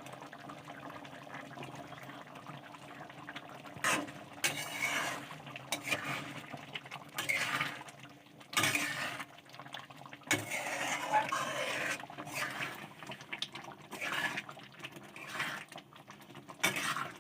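Water poured and splashing in short, irregular spells, with dishes and utensils knocking now and then.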